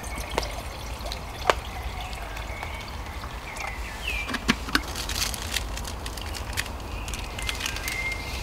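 Water dripping and trickling, with many sharp single drops scattered irregularly throughout.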